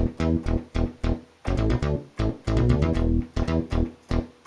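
Roland Juno-106 synthesizer fitted with the Kiwi-106 upgrade playing a riff of short, plucked-sounding bass notes, several a second, with a few held a little longer.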